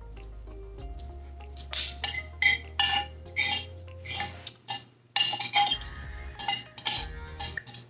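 Metal spoon and fork clinking and scraping against a plate as food is cut up: a quick, irregular run of sharp clinks starting about two seconds in.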